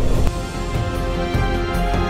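Background music: sustained notes with a light beat.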